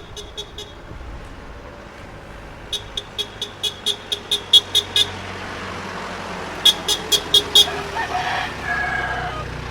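Semi-urban outdoor soundscape: a motor vehicle's engine running and growing louder toward the end, under three runs of sharp rapid clicks at about five a second, the middle run a dozen strokes long and getting louder. A short pitched call follows near the end.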